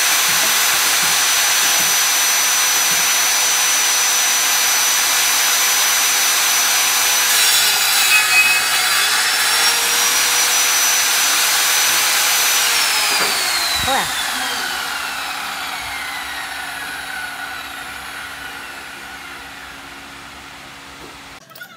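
Table saw running with a steady high whine while cutting wood; the whine dips in pitch under load about eight seconds in. Then the saw is switched off and its blade winds down, the pitch sliding lower and the sound fading over the last several seconds.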